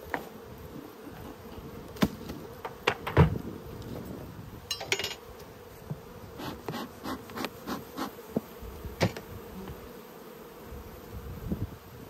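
Honeybees buzzing in a steady hum over an open Langstroth hive box. Sharp knocks and scrapes come through it as the mat covering the frames is lifted off, the loudest about two and three seconds in.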